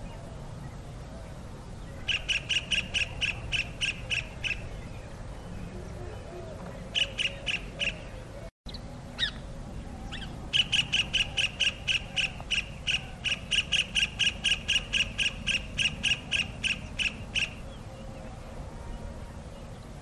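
Kingfisher calling: runs of short, sharp, high piping notes repeated about four times a second, in three bouts, the last and longest lasting about seven seconds.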